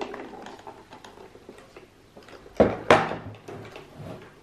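A clear acrylic makeup organizer full of brushes and cosmetics being handled and set down on a wooden table. Light clicks and rattles, then two loud knocks a little over halfway through, with the contents rattling after each.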